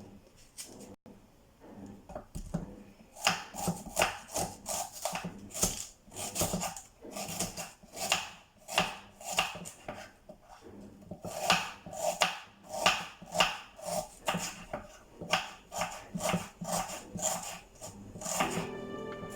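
A knife chopping onion on a cutting board: a run of sharp strokes about two a second, with a short pause midway. Music comes in near the end.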